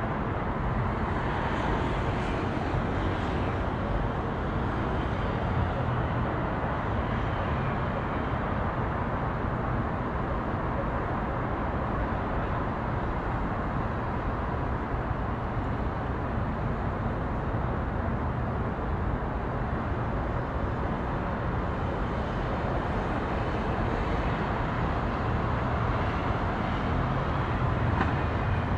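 Steady city ambience: a constant low rumble of traffic and engine drone, with a police helicopter circling in the distance.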